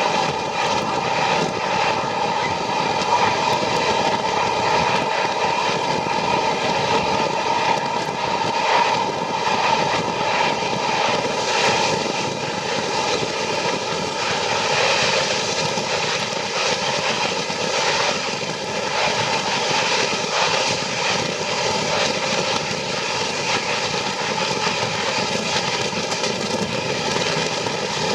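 Steady mechanical running noise of a train, with a constant hum.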